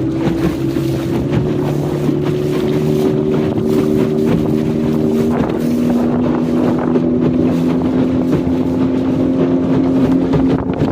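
Small motorboat's engine running steadily under way, with wind on the microphone; the engine's pitch shifts slightly about halfway through.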